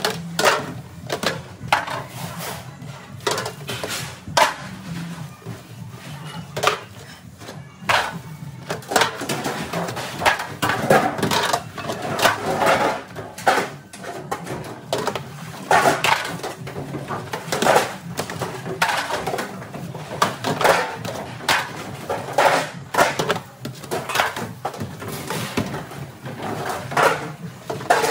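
Stainless steel hotel pans clattering and clanking as they are washed, handled and stacked in a commercial dish sink, with many irregular metallic knocks.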